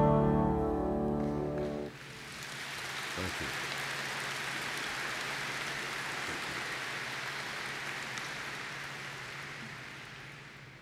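Acoustic guitar music from a promotional video ends about two seconds in. A hall audience then applauds, swelling quickly, holding, and fading away near the end.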